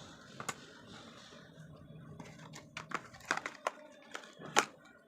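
Small hard plastic parts of a motorcycle USB charger kit being handled: a string of light clicks and taps, sparse at first and bunching up in the second half, the loudest about four and a half seconds in.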